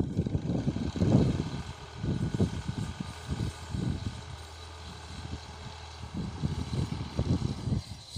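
Fiat 480 tractor's diesel engine running steadily under load as it pulls a plough through the field, a low drone with uneven low rumbling bursts over it.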